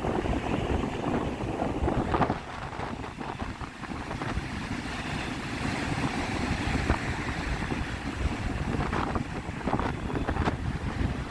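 Strong wind buffeting the microphone in gusts, a loud low rumble with sudden thumps, over the wash of surf on the beach.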